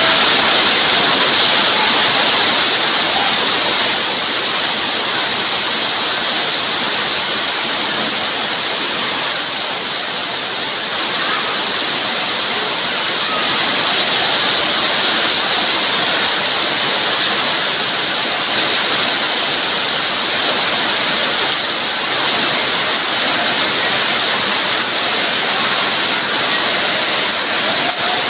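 Heavy rain pouring steadily onto wet ground and puddles: a dense, even hiss.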